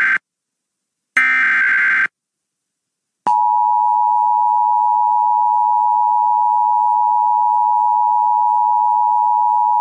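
Emergency Alert System broadcast signals. First comes the tail of one SAME digital data burst and then another, harsh warbling screeches about a second long. About three seconds in, the EAS attention signal starts, a loud steady two-tone alert tone.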